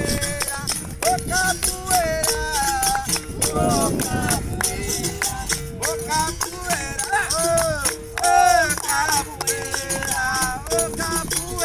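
Capoeira music: a voice singing over shaken rattle and tambourine percussion, with one short note repeated on a steady beat.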